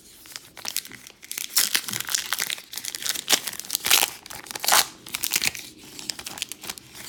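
A foil trading-card pack being torn open and crinkled by hand: a run of sharp crackling and ripping, loudest in the middle, then dying down.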